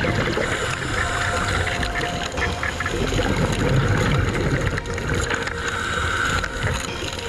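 Underwater noise picked up by a camera in an underwater housing: a steady rushing hiss over a low rumble.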